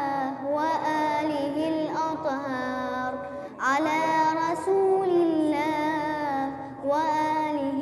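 A single voice chanting in the melodic style of Quran recitation, with long, ornamented held notes and short breaks for breath. There is a rising run about three and a half seconds in.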